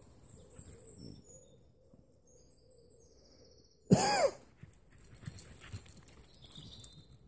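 Woodland ambience with birds chirping, broken about four seconds in by one short, loud voiced call that rises and then falls in pitch, followed by footsteps through grass.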